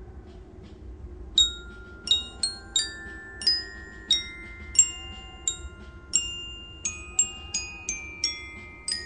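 Soundtrack music: a slow melody of single bell-like struck notes on a glockenspiel-like mallet instrument, each note ringing on. The melody begins about a second and a half in, at roughly two notes a second, over a soft low background haze.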